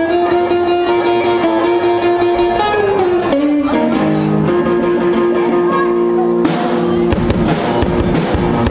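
Electric guitar playing held, bending rock-and-roll lead notes on its own, then a drum kit comes in with a steady beat about six and a half seconds in.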